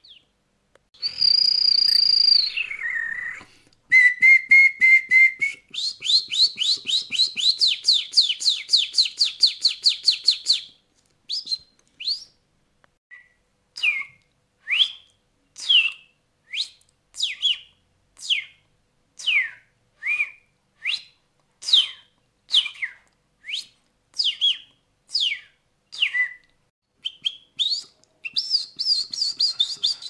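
Mouth-whistled imitation of Brazilian birdsong. A held high whistle slides down, then a fast trill of repeated notes runs for several seconds, then comes a long series of separate downward-slurred whistles, about one to two a second, imitating the red-cowled cardinal (galo-de-campina). A new, denser twittering phrase starts near the end.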